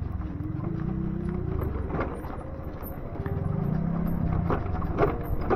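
Ion Mobility M1S electric motorcycle riding slowly over a rough lane. A low hum rises and falls as it pulls away, with scattered knocks from the wheels and body over bumps.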